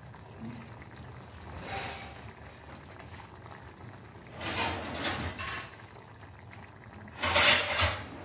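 Steel cookware and utensils being handled by the stove: three brief clattering noises, the loudest near the end, over a low steady background.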